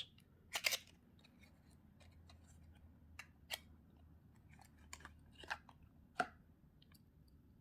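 Faint, scattered small clicks from a Victorinox Huntsman Swiss Army knife being handled, with its metal parts clicking; the loudest pair comes about half a second in and a few more follow over the next six seconds.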